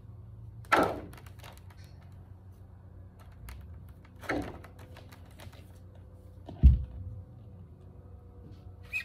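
Three separate knocks a few seconds apart, the last and loudest a deep thump, with a small click near the end, over a low steady hum: handling noise at a table.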